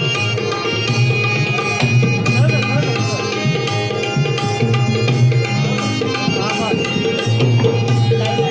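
Loud music with a steady drum beat and a melody over it.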